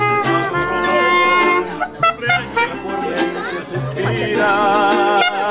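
Live mariachi band playing: held trumpet-like melody notes with vibrato over strummed guitars in a steady rhythm.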